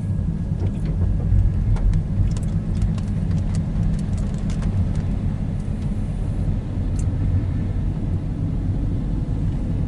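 Steady low rumble of a car heard from inside its cabin, with a few faint light clicks.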